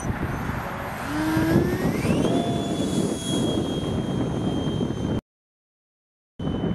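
Electric ducted fan of a model Sabre jet spooling up to full throttle for a hand launch: a whine that rises in pitch about a second in, then holds steady as the model climbs away. The sound cuts out for about a second near the end, then the steady whine returns a little lower.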